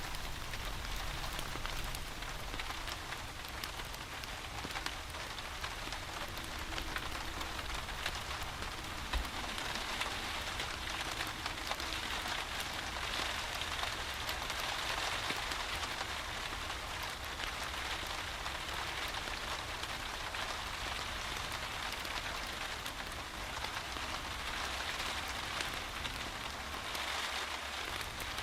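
Steady rain falling, a dense even patter with many small scattered ticks and one sharper tick about nine seconds in.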